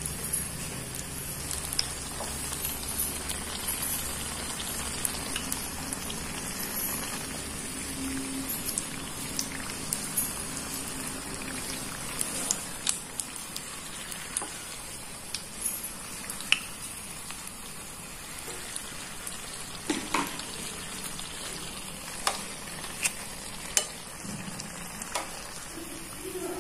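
A chicken spring roll deep-frying in hot oil: a steady sizzle, with scattered sharp clicks and pops, more of them in the second half.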